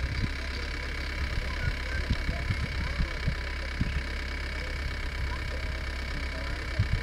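A vehicle engine idling steadily, with scattered short low thumps.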